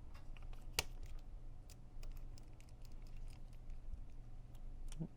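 Faint, scattered small clicks and taps of a tool and metal parts as screws are taken out of an Action Army AAP-01 airsoft pistol, with one sharper click about a second in.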